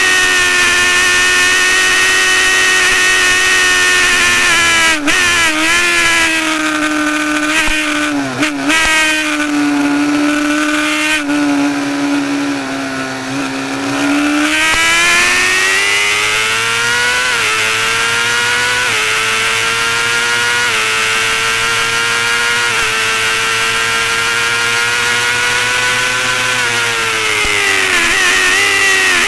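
Honda CBR600RR's inline-four engine at high revs, heard from the bike itself on track. Its pitch dips about five seconds in and runs lower for a while, then climbs through several upshifts from about halfway and falls again with downshifts near the end.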